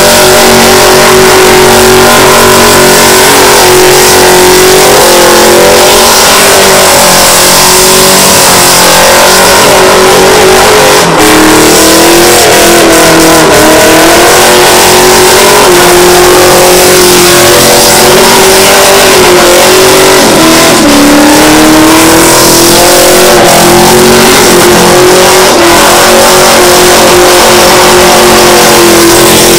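Holden Commodore SV8's V8 engine held at high revs through a burnout, very loud, its pitch mostly steady with a few brief drops in revs and recoveries through the middle stretch.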